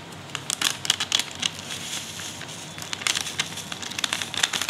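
Plastic spice packet crinkling and crackling in the hand while mustard powder is shaken out of it, a rapid irregular run of small crackles that grows busier in the second half.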